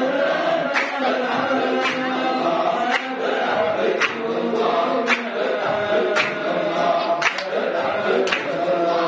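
A group of men chanting Samman dhikr together in a sustained unison drone. A sharp beat falls about once a second.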